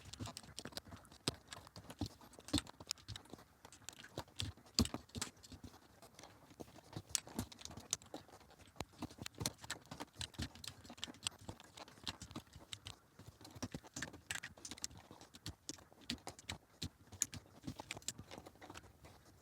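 Plastic Amiga-style keycaps being pressed onto the stems of a mechanical keyboard's switches one after another: a quick, irregular series of small clicks and taps.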